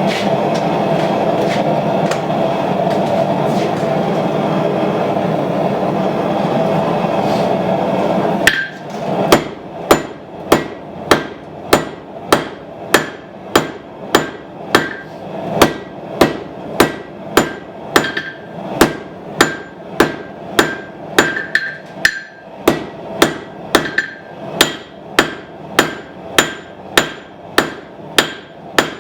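A forge runs with a steady roar for about eight seconds, then a hand hammer strikes hot steel on an anvil about twice a second, each blow ringing briefly, drawing out a knife tang.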